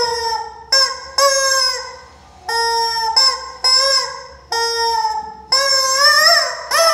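Rubber screaming-chicken toy squeezed by hand over and over, giving about eight squawks, some short and some drawn out, their pitch bending up and then sliding down as the air runs out.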